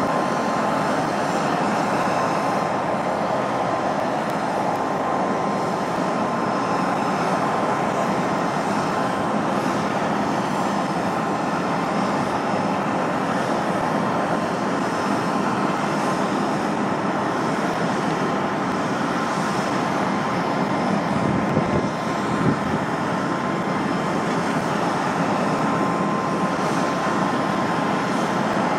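Steady running noise of aircraft and de-icing machinery beside a parked Airbus A320: an even rush with one constant whining tone over it, with a brief bump about three-quarters of the way through.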